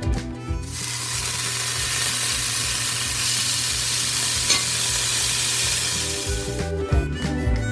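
Whole spices (cinnamon sticks and cumin seeds) sizzling in hot oil in a large steel pot. The steady sizzle starts about half a second in and stops about a second before the end, with a single light tap midway. Background music plays at the start and at the end.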